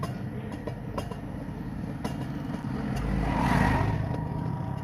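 Road vehicle noise: a steady low engine running, with one vehicle swelling louder and fading as it passes about three seconds in.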